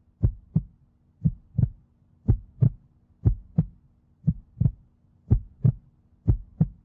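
Heartbeat sound effect: double thumps, a lub-dub pair about once a second, over a faint steady low hum.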